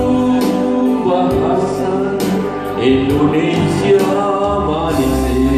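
A man and a woman singing an Indonesian patriotic song together into microphones, holding long notes.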